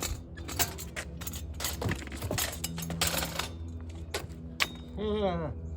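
Metal clanks and clicks from a motorcycle lift as a Harley-Davidson Low Rider ST is taken off it, over a steady low hum. A short sound falling in pitch comes about five seconds in.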